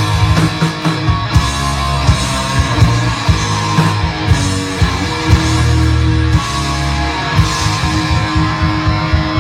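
Live rock band playing an instrumental passage: guitar over a bass line and drums keeping a steady beat.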